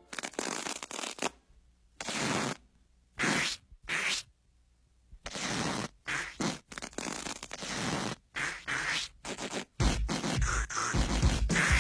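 Cartoon sound effects of sticky bubble gum stretching and peeling off shoes and feet: a string of short, noisy scraping bursts with brief gaps between them. Music comes in near the end.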